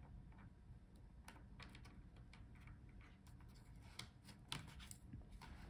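Near silence with a few faint clicks and scrapes from a pry tool picking at the edge of a laptop LCD panel, working to catch the adhesive pull-out tabs under the screen.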